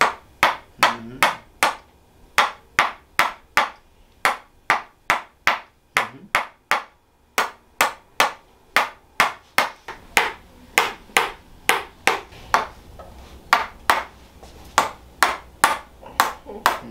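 Tok sen hammer massage: a mallet tapping a wooden wedge held against the lower back and hip, sharp even taps at about two to three a second, with a short pause about halfway through.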